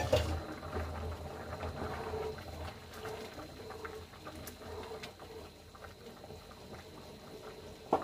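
Pot of rice boiling in turmeric water, bubbling and crackling, with a wooden spoon stirring through it. A sharp knock at the start and another near the end.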